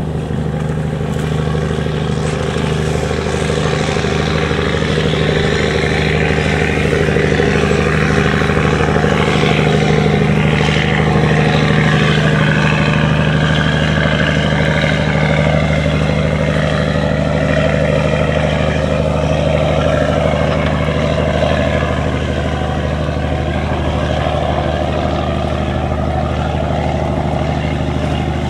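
Wooden fishing boat's diesel engine running steadily at speed, a deep even drone, with the rush of water and spray at the hull, a little louder around the middle.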